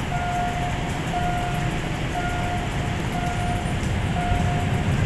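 Railway level-crossing warning signal sounding a steady tone about once a second, five times, over the low rumble of the motorcycles and cars idling at the closed crossing.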